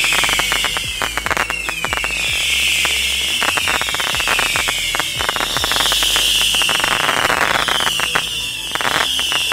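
Whistle Spliffs 300-shot missile barrage firing rapid shots. Overlapping whistles fall in pitch, about one a second, over a fast run of sharp pops and crackling.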